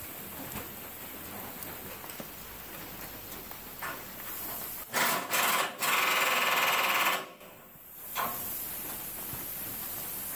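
A harsh mechanical rasp of metal parts moving against each other as the truck frame is shifted on a two-post lift's arms: three short bursts about halfway through, then a continuous stretch of about a second and a half, over a steady background hiss.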